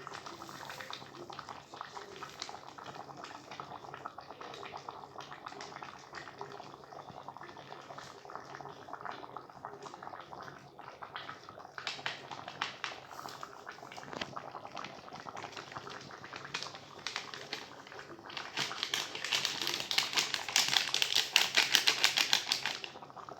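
Chicken curry bubbling and crackling as it cooks in the pan, a dense run of small pops that grows much louder for the last few seconds.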